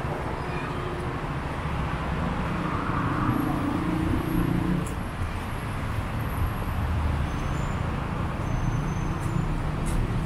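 City street traffic: cars and other motor vehicles running past in a continuous low rumble.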